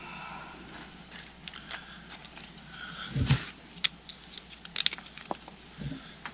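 Rustling and light crackling of small dry twigs being handled and laid onto a smouldering tinder fire, with a dull knock about three seconds in and a few sharp snaps or clicks just after.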